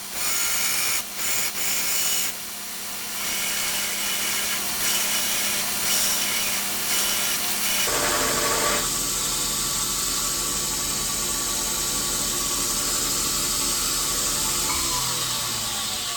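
2x72 belt grinder grinding a piece of steel down to a marked line: a steady, hissing grind. About halfway through the sound changes to a steadier machine hum, whose pitch starts to fall near the end.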